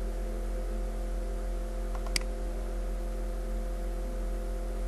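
Steady electrical mains hum in the recording, with one short sharp click about two seconds in, a computer mouse button being clicked to place a line.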